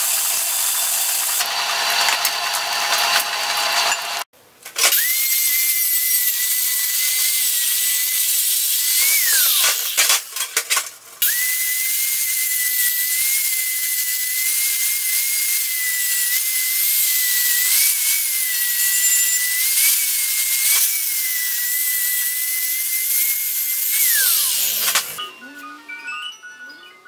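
Welding arc crackling for about four seconds. Then an angle grinder with an abrasive disc grinds down fresh welds on a steel bumper section: a steady high whine over a hiss, briefly broken about ten seconds in, then winding down with a falling pitch near the end.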